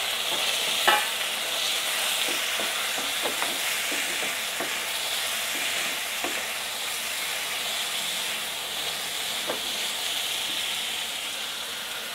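Small onions and freshly added chopped tomatoes sizzling in sesame oil in a clay pot, stirred with a wooden spoon. The spoon knocks and scrapes against the pot a few times over a steady frying hiss.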